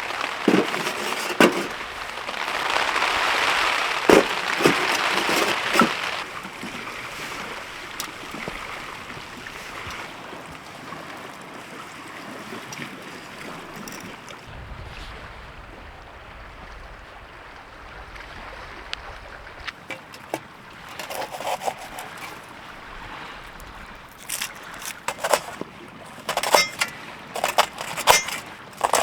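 Storm wind gusting and rain hissing, strongest for the first several seconds and then settling to a steadier rush. Scattered sharp clicks and knocks come through it, crowding together near the end.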